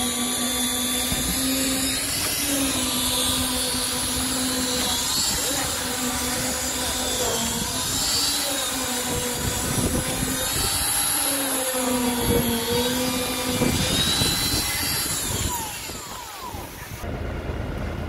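Diesel engine of a truck-mounted concrete pump running steadily under load, its pitch sagging briefly a few times. It grows quieter near the end.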